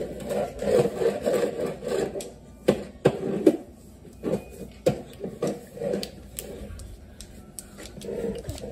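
Clear plastic bowl knocked and tapped on a tile floor by small hands: an irregular series of sharp knocks, busier in the first half.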